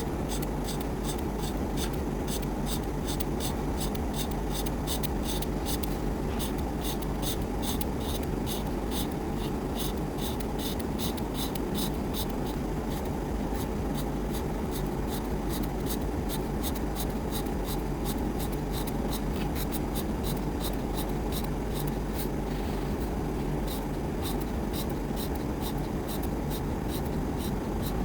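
Colouring strokes on paper: quick back-and-forth scratchy strokes, about three to four a second, filling in an area, over a steady low hum.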